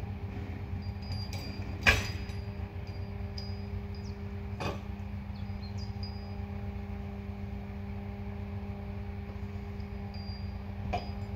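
Truck-mounted knuckle-boom crane running steadily with an even hum while it lifts a wrecked car, with sharp metal clanks, the loudest about two seconds in, another near five seconds and a smaller one near the end.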